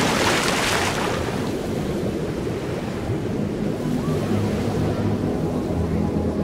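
Rush of bubbles and water as the camera goes under the surface, fading within about the first second into a steady, muffled low rumble of water around the underwater housing.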